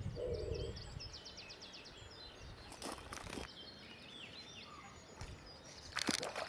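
Small birds singing and chirping in short repeated trills, with two brief splashes, one around the middle and a louder one near the end, as a hooked carp swirls at the surface.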